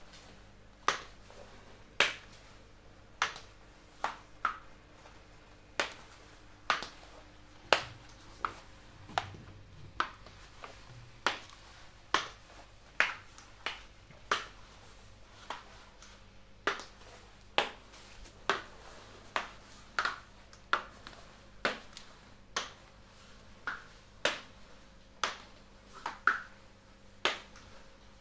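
Stiletto heels with steel heels clicking sharply on a ceramic tile floor, one step after another at an uneven walking pace.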